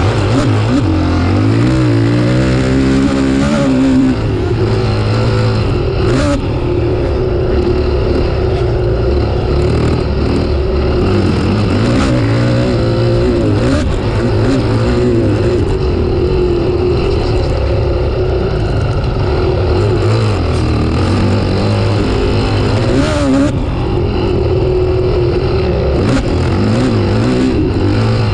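Honda CRF450R motocross bike's single-cylinder four-stroke engine running hard on the track. The revs climb and drop over and over as the throttle is worked.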